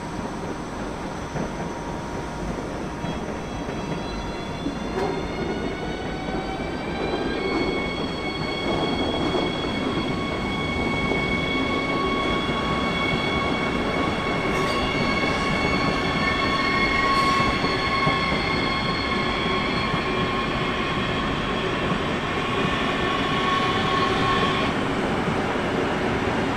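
A train running by, its rumble growing louder. Over it a high whine rises in pitch for the first several seconds, then holds steady and cuts off about 25 seconds in.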